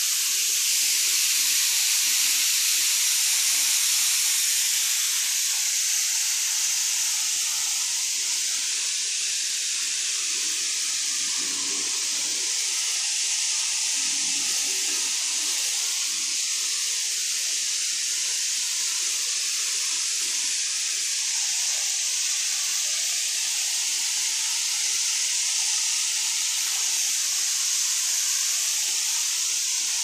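Steady rushing hiss of a waterfall's falling water.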